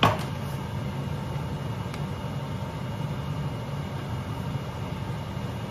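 A sharp metallic knock with a brief ring right at the start, as a metal flour sifter is set down, then a steady low hum with a faint click about two seconds in.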